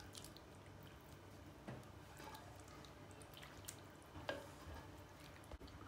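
Faint wet plops and light scrapes of a wooden spoon ladling thick minced-meat and tomato sauce from a frying pan onto roasted eggplant in a glass baking dish, with a few soft clicks.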